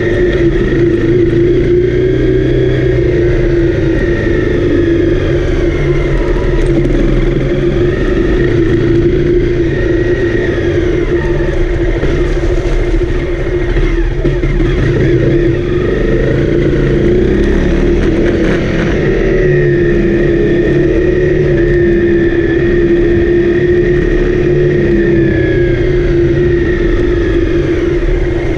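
Honda CRF250L's single-cylinder four-stroke engine running under way, its note rising and falling with the throttle, over low wind rumble.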